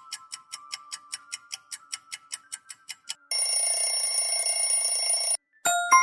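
Quiz countdown timer sound effect: fast ticking at about four ticks a second over a faint tone, then an alarm-bell ringing for about two seconds that cuts off, followed by a single bell ding near the end, signalling that the answer time is up.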